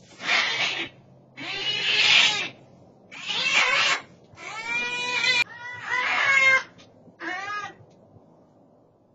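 Bobcat screaming: six loud, harsh cat-like yowls in a row about a second apart. The first calls are raspy, the later ones more tonal with a wavering pitch, and the calling stops about two seconds before the end.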